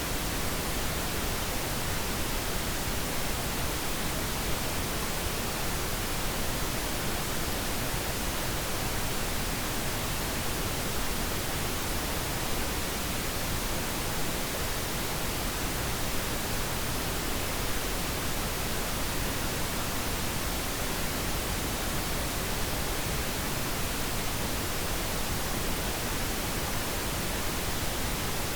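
Steady pink noise: an even, unchanging hiss.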